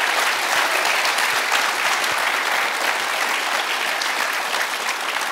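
An audience applauding: a sustained round of clapping that eases off slightly toward the end.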